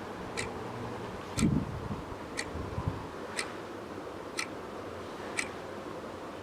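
A clock ticking steadily, one tick a second, over a faint hiss, with a soft low thud about a second and a half in.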